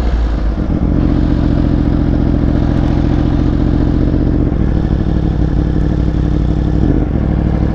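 Yamaha R1 inline-four sport-bike engine running under way at a fairly steady speed. Its pitch shifts a few times with throttle or gear changes.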